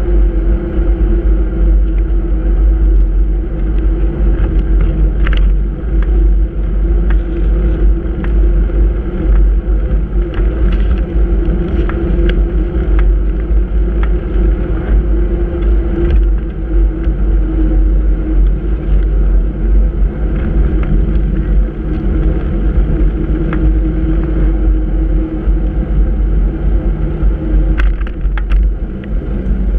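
Wind buffeting a handlebar-mounted action camera's microphone as it rides over brick paving. A steady hum runs underneath, and short clicks and rattles come now and then, a cluster of them near the end.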